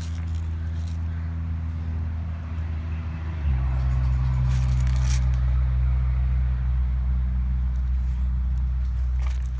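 An engine running steadily, with a low hum that gets louder and shifts in pitch about three and a half seconds in.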